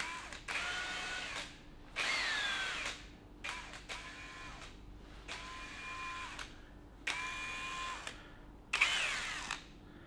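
Cordless drill being triggered in about six short runs of roughly a second each, its motor whine speeding up and slowing down with each pull of the trigger.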